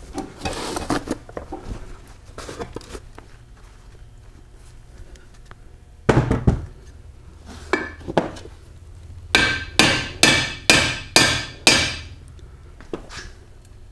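Countershaft being tapped into a Borg Warner Super T10 four-speed transmission case to seat it. A few scattered knocks are followed by a quick run of six sharp metallic taps about half a second apart, then one more tap near the end.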